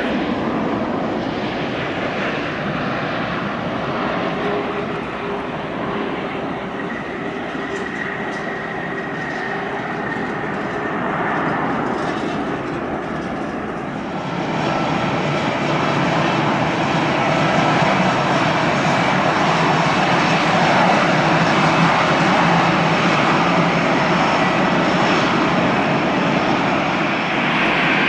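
Airliner engines running, a steady rushing hum with faint whining tones that grows louder about halfway through and stays loud.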